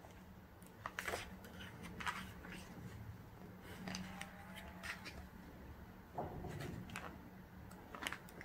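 Glossy pages of a thick photobook being turned by hand: short paper rustles and flicks at irregular intervals, with a longer rustle about six seconds in, over a faint steady low hum.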